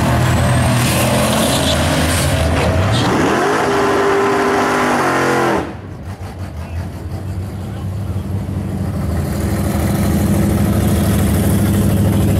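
Drag-racing cars, a turbocharged, methanol-injected Mustang Cobra V8 among them, launching and accelerating hard down the strip, the engine pitch climbing and falling back several times through the gears. About five and a half seconds in the sound drops abruptly to a quieter, steady engine drone that slowly grows louder.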